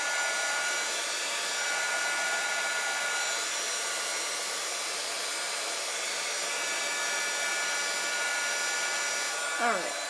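Craft heat gun blowing steadily over a paper tag to melt embossing glaze, with a steady motor whine. It is switched off near the end, and the whine falls away as the motor spins down.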